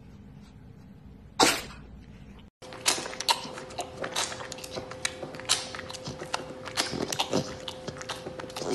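A short, loud, noisy burst about a second and a half in. After a cut, a tiger cub suckles milk from a baby bottle, with a rapid run of wet sucking and smacking clicks over a faint steady hum.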